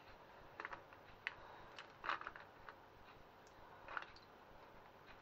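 Faint, scattered clicks and small cracks of an eggshell being broken open by hand, a handful of separate ticks with short pauses between them.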